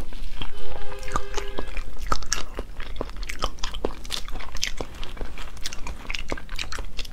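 Close-miked chewing and crunching of spicy whole shrimp, with many sharp crackling clicks. A short steady pitched tone sounds from about half a second in for about a second.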